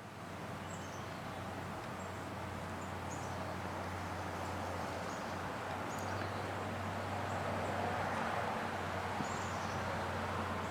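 Outdoor ambience: small birds chirping now and then over a steady low hum and a wash of background noise.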